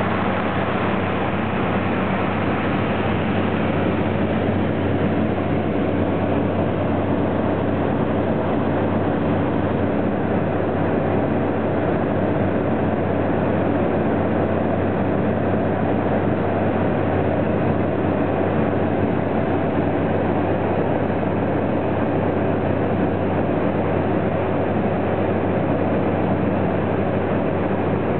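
Float plane's engine and propeller droning steadily in flight, heard from inside the cabin, a constant low hum with a rushing noise over it.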